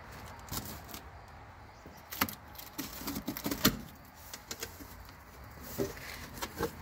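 Cardboard shipping box being opened by hand: a blade slitting the packing tape and the cardboard flaps being pulled open and bent back. It makes scattered crackles and sharp snaps, with two louder snaps in the middle.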